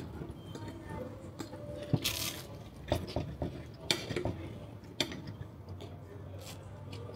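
Cutlery knocking and clinking against a plate, with a short scrape about two seconds in.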